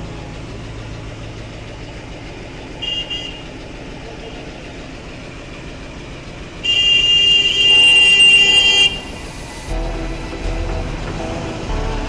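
A vehicle horn sounds: a short blast about three seconds in, then a long, loud, steady blast of a couple of seconds, over a background of street traffic.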